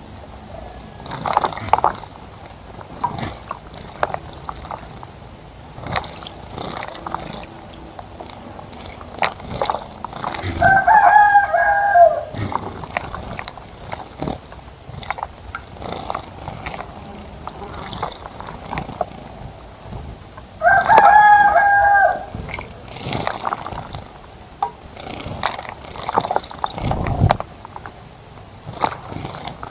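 A rooster crowing twice, about ten seconds apart, each crow lasting about a second and a half. Short chirps and ticks come between the crows.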